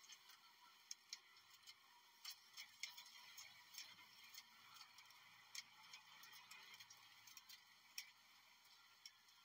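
Near silence with faint, irregular ticks and clicks over a light hiss.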